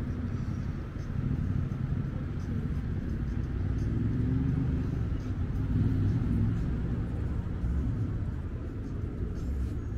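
City street traffic: cars driving past with a steady low engine and tyre rumble that swells as a vehicle passes close about halfway through, with faint voices of passers-by underneath.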